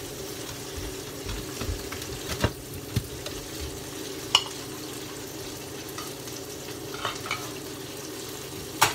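Tilapia frying in hot oil: a steady sizzle, with a few sharp clicks and knocks, the loudest near the end.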